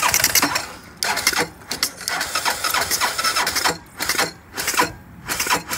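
Honda 250 ATV engine cranked on its electric starter, turning over roughly and then in slow, labored beats about two a second near the end. Oil poured into the intake has filled the cylinder, which the owner calls hydrolock.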